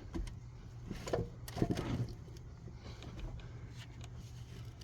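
A few light knocks and scrapes of metal as a cylinder head with its exhaust manifold attached is worked onto the engine block, over a steady low hum.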